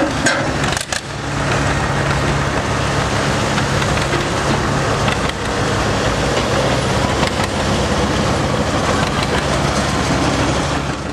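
Vintage John Deere tractor's engine running steadily under load, pulling a weight-transfer sled down a tractor-pull track.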